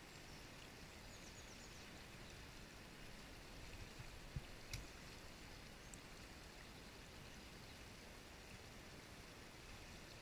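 Faint, steady rush of a shallow, rocky stream running over riffles, with a couple of small clicks about halfway through.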